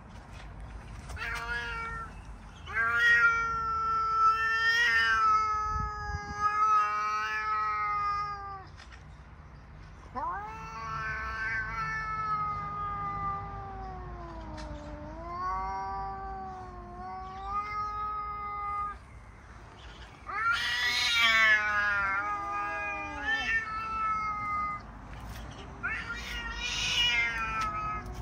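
Two domestic cats yowling at each other in a territorial stand-off: long drawn-out caterwauls, each held for several seconds with the pitch wavering up and down, one after another with short pauses between.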